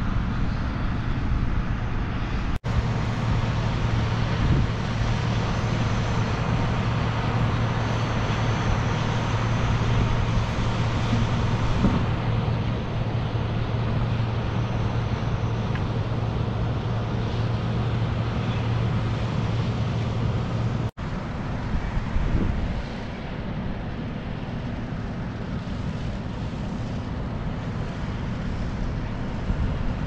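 A steady low mechanical hum over rushing wind noise, cut off by two brief dropouts about two and a half seconds in and again about twenty-one seconds in.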